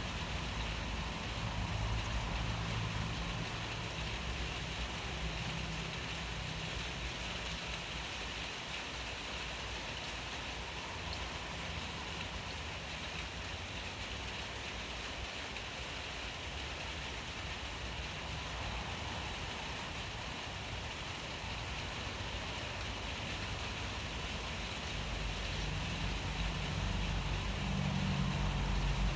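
Steady rain falling, an even hiss without a break. A low rumble sits under it at the start, fades, and swells again near the end.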